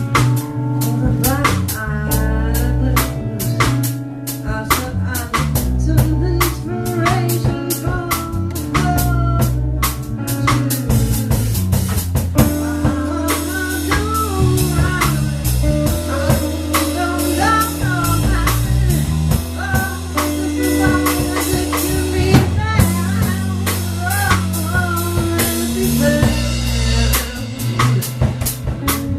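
Live blues band playing: a steady drum-kit beat with rimshots under held bass notes and a lead melody full of bent, wavering notes.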